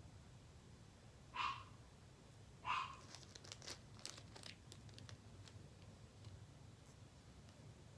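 Small plastic packaging crinkling and tearing: two short rustles, then a quick run of small clicks and crackles, as add-ins are put into a slime.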